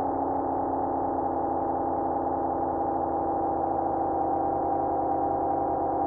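Eurorack modular synthesizer playing a steady, dense drone of several held tones, with an engine-like texture.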